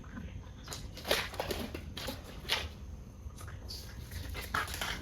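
Disposable examination gloves being pulled on: a few short rubbery rustles and squeaks.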